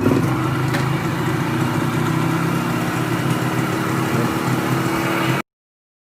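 1979 Yamaha YB100's single-cylinder two-stroke engine running steadily at idle after a carburettor cleaning. The sound cuts off suddenly near the end.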